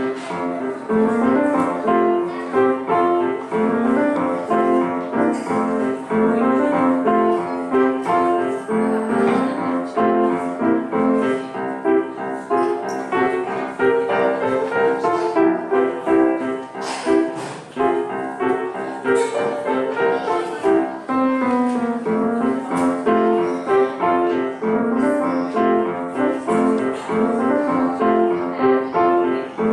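Piano playing a brisk piece in fast, even notes, with a figure of quickly repeated notes in the middle register running under the melody.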